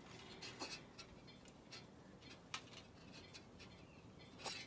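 Faint crinkles and a few light ticks of thin embossed aluminum baking-sheet pieces being handled and pressed into place on a glass-topped table, one slightly sharper tick about two and a half seconds in.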